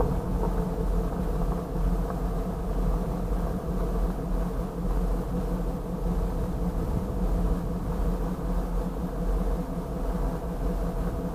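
Diesel locomotive engine idling steadily, a constant low hum heard from inside the cab.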